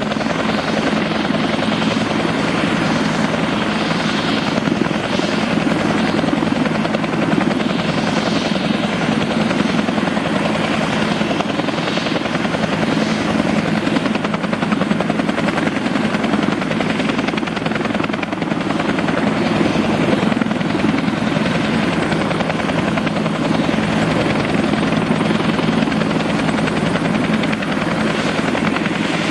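Bell 205A-1 (civilian UH-1H Huey) helicopter running on the ground with its single turbine engine and main and tail rotors turning: a loud, steady sound with a strong low hum.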